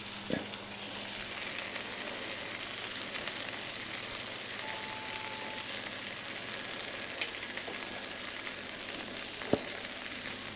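Tortillas topped with cheese frying in a pan, giving a steady sizzle, with a light knock near the start and another near the end.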